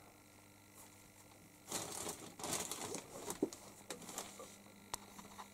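Rustling and crinkling that starts about two seconds in and goes on for a couple of seconds, with a few sharp clicks.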